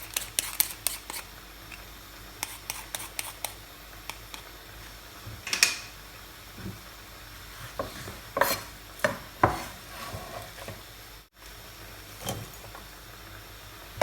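Kitchen utensils and dishes being handled: a quick run of light clicks about five a second near the start and again a few seconds in, then a few separate louder clinks and knocks of crockery and utensils, with a faint sizzle underneath.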